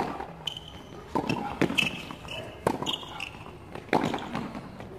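Tennis rally on a hard court: the serve and following groundstrokes give sharp racket-on-ball hits about every second or so, the loudest right at the start, mixed with ball bounces and short high squeaks of shoes on the court.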